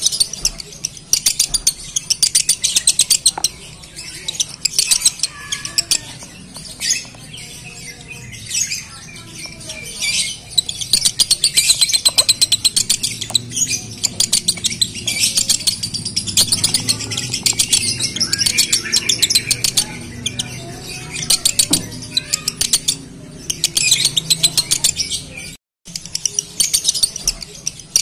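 Male lovebird singing a long, rapid 'konslet' song: a fast, almost unbroken stream of high chirps, squeaks and clicks with only short pauses. This is the song of a male in breeding condition.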